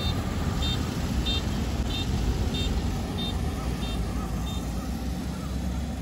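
A Kubota ER470 combine harvester running with a low steady rumble. Over it an electronic warning beeper sounds a short high beep about every two-thirds of a second, then stops about four and a half seconds in.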